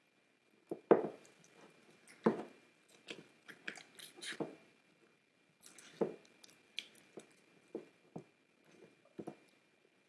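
A spatula stirring thick, partly set play-clay dough in a glass mason jar: irregular scrapes, short knocks and soft squelches. The dough has begun to solidify but is still partly runny.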